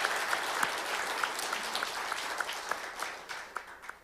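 Audience applauding in a large hall, a dense patter of clapping that fades out near the end.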